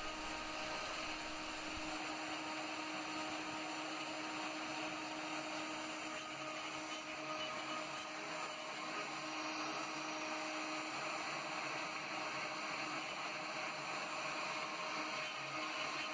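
Faint steady hiss with a low hum underneath, like room tone or distant ventilation, and no distinct event.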